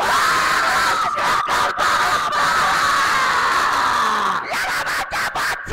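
A large crowd of race spectators shouting and screaming together in a dense, loud roar of voices. The sound cuts out briefly several times near the end.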